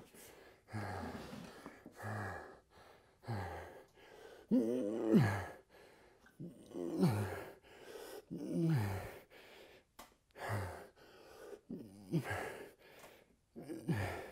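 A man breathing hard under exertion: sharp breaths and strained, groaning exhales that fall in pitch, about one every second or so, through a set of one-arm dumbbell rows.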